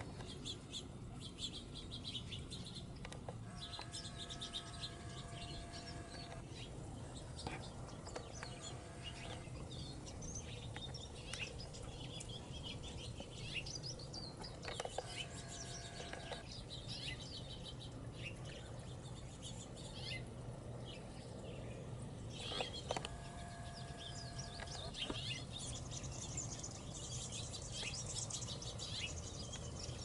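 Small songbirds chirping and twittering on and off throughout, while a longer, steady-pitched call sounds three times against a faint low background hum.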